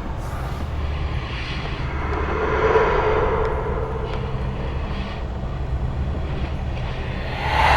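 Horror ambience: a steady low rumbling drone with slow swells of rushing, whooshing noise, one building about three seconds in and a louder one near the end.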